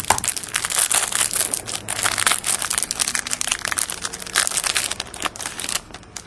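Plastic wrapping of a trading-card pack crinkling and crackling as it is opened and handled, with the cards slid out; it dies away shortly before the end.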